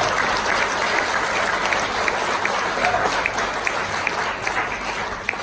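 Audience applauding in a hall, a dense patter of hand claps that thins and dies down near the end. A voice calls out briefly about three seconds in.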